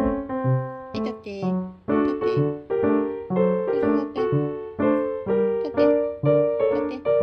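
Background piano music: a gentle melody of single struck notes, about three a second, each fading before the next.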